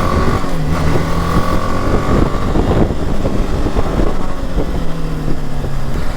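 BMW G 310 GS single-cylinder motorcycle engine running under way, its note shifting as the throttle changes, with steady wind rush over the helmet microphone.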